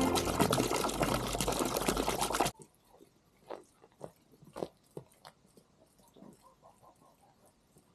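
Background music that cuts off suddenly about two and a half seconds in, followed by faint, irregular clicks and crunches.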